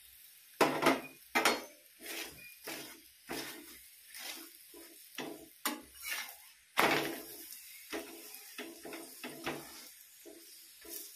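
A metal spatula scrapes and knocks against a hot tawa griddle as a flatbread is pressed and turned, in uneven strokes about one or two a second. The loudest come about a second in and around seven seconds in. A faint steady sizzle of ghee runs underneath.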